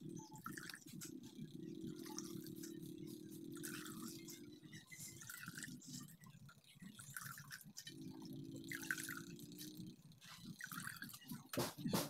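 Soaked lentils being scooped by hand out of a bowl of water, water dripping and splashing back into the bowl. A faint low droning tone runs underneath for much of it, dropping out for a few seconds in the middle.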